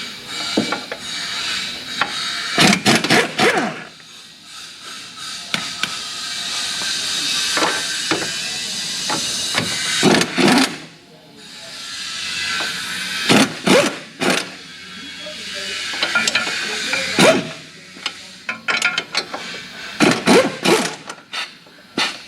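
Tool work on a 1990 Mazda Miata's front suspension as the strut bolts come out: long stretches of hissing broken by several clusters of sharp metal clanks and knocks.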